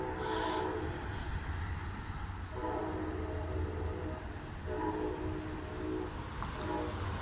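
Locomotive air horn sounding a series of chord blasts: one ends about a second in, a longer blast follows about two and a half seconds in, then a short one and another near the end, over a steady low rumble.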